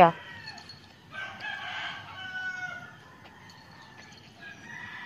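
A rooster crowing in the neighbourhood: one drawn-out crow lasting about two seconds starting about a second in, and another beginning near the end.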